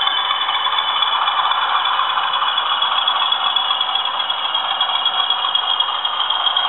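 Class 20 diesel engine soundtrack from the LokSound V4 sound decoders in two Bachmann OO gauge Class 20 models running double-headed, played through small speakers. It is a steady engine note with a thin, steady high tone on top.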